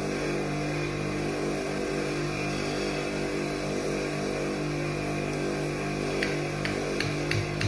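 A steady engine-like hum runs throughout. Near the end come a handful of light metallic clicks as a piston ring is worked onto a piston with a small screwdriver.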